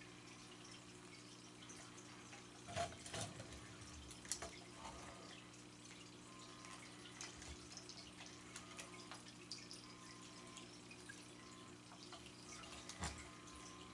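Near-quiet room with a steady low hum and a few faint clicks and taps, the clearest about three seconds in and near the end, as a cat bats a plastic wobble toy on a tile floor.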